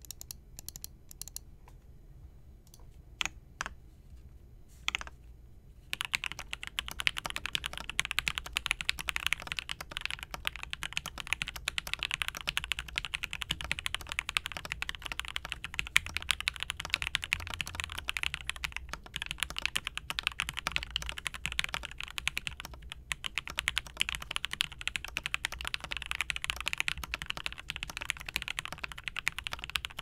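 Custom KBDFans x Vulcan Maja mechanical keyboard with lubed and filmed Alpaca linear switches, an FR4 plate and PBT keycaps, being typed on: a few separate keystrokes at first, then steady fast two-handed typing from about six seconds in.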